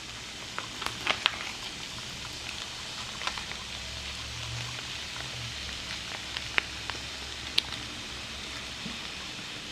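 Hot pot of freshly drained instant noodles sizzling quietly, with scattered light clicks and taps as a sauce packet is emptied into it.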